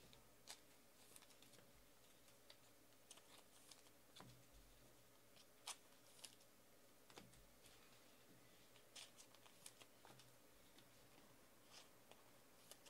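Near silence with faint, scattered clicks and light rustles of trading cards being handled and set down.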